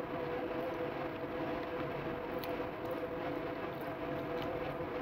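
A steady machine hum with a constant droning pitch, under a few faint clicks of someone biting and chewing fries.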